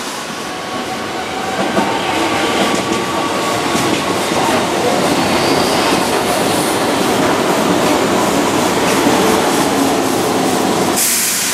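A Keihan 2600-series electric train runs past and away over curved track and points, its wheels clattering over the rail joints, with faint squealing tones from the wheels. The sound grows louder about two seconds in. About a second before the end it changes abruptly to a hiss.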